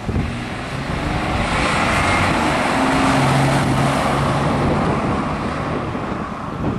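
A car on the road, most likely the Holden VN Commodore V6 on its test drive: steady tyre, wind and engine noise with a low hum that swells to a peak about three seconds in, then eases off.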